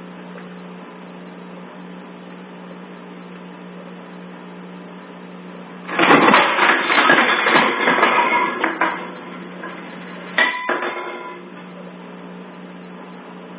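A booby trap of kitchen objects clatters and crashes onto the counter as the dog sets it off, in a sudden loud burst of about three seconds. A second, shorter clatter follows a little over a second later.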